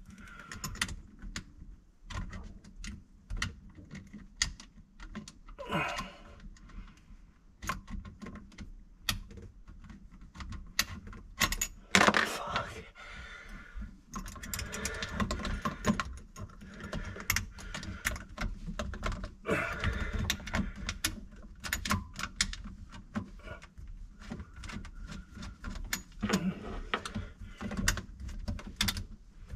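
Irregular small clicks, taps and light metallic rattles of hands working a fitting on the side of a garbage disposal unit under a kitchen sink, with a louder cluster about twelve seconds in.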